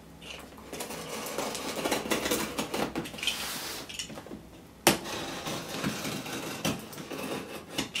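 A cardboard parcel wrapped in plastic film and tape being cut open with a handheld blade: irregular scraping, crinkling and rustling with small clicks, and one sharp knock about five seconds in.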